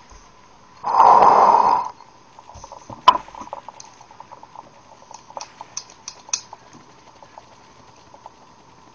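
A one-second rush of air through a home-made brass quick exhaust valve, then a sharp metallic click and a run of light clicks as the small brass mechanism is worked by hand.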